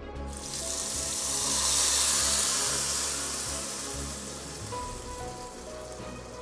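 Hot mustard-oil tadka (tempering with mustard seeds, curry leaves, dried red chillies and urad dal) sizzling as it hits wet coconut chutney. The hiss swells over the first two seconds, then slowly dies away.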